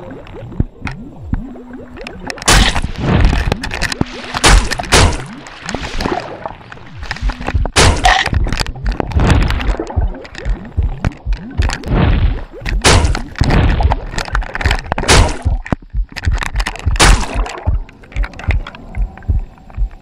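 Red-bellied piranhas in a feeding frenzy, recorded underwater: churning, bubbling water broken by many sharp knocks and cracks, coming in loud, irregular bursts.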